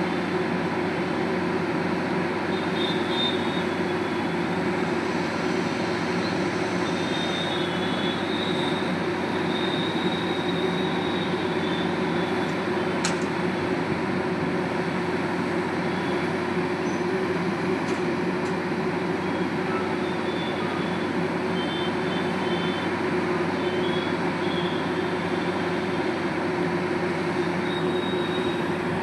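Sany heavy drilling machine running steadily at work, a constant even mechanical noise with no pauses.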